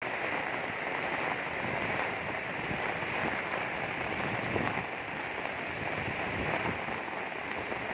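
Heavy rain pouring steadily with wind, an even dense hiss, with a few low rumbles of wind gusting on the microphone.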